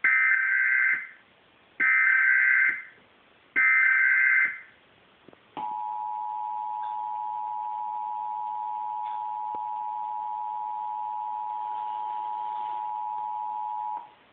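Emergency Alert System broadcast tones played through a TV speaker: three bursts of digital SAME header data, each about a second long, then the steady two-tone attention signal for about eight seconds, cut off abruptly near the end.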